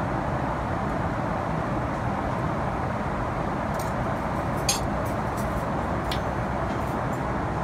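Steady airliner cabin noise in flight, the even sound of engines and airflow. A few light clinks come about halfway through, the loudest near the middle, from a metal spoon against a glass dessert jar.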